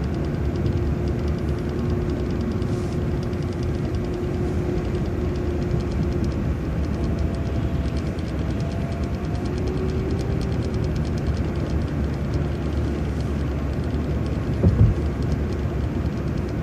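City transit bus driving at steady speed, heard from inside: an even drone of engine and road noise with a faint whine that shifts in pitch partway through, and a single thump about a second and a half before the end.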